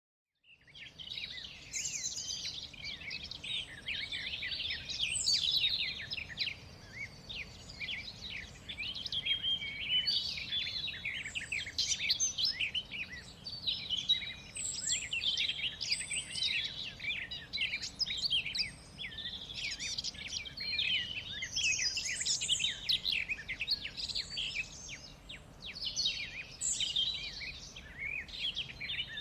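A chorus of many small birds chirping and singing at once: dense, rapid, high-pitched calls overlapping throughout, over a faint steady hiss. It fades in about half a second in.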